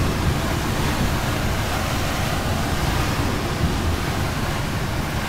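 Steady rush of air over an engineless glider in flight, heard from inside the cockpit as it comes in low to land.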